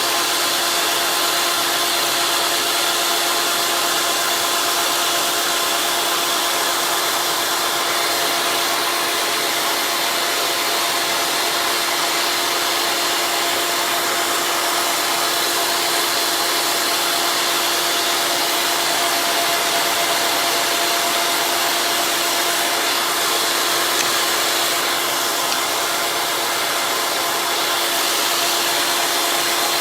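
Ringanator ring-cutting machine running steadily: a constant motor whine over an even hiss, with no change in speed.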